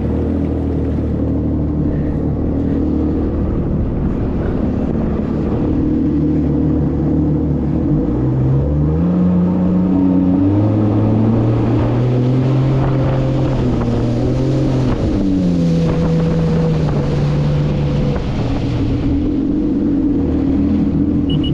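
Boat motor running on a test run after repairs. It speeds up about eight seconds in, holds the higher speed, then throttles back after about fifteen seconds. Wind rushing on the microphone grows while it runs fast.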